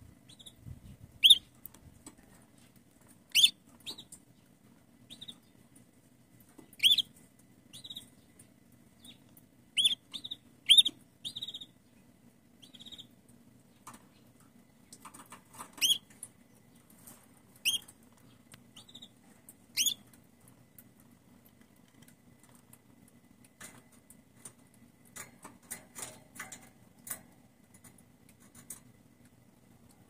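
Red-factor canary hen giving short, high contact calls every few seconds, calling to the cock canary. Faint irregular clicking follows in the last several seconds.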